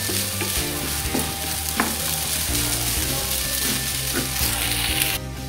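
Fried rice sizzling in a nonstick frying pan while a wooden spatula stirs and scrapes it, with scattered clicks of the spatula against the pan. The sound drops briefly just before the end.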